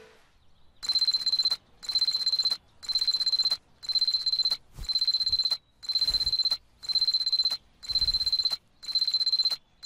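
Electronic alarm clock going off: a high-pitched, rapidly pulsing beep in bursts about once a second, starting about a second in.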